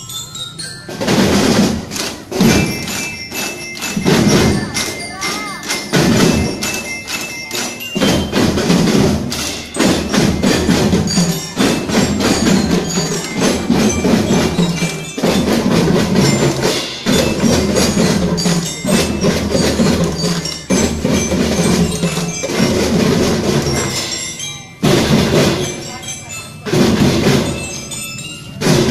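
Children's drum band playing: metal-bar glockenspiels struck with mallets over drums, in a steady rhythm.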